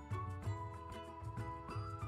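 Background music with a steady beat under a held melody line.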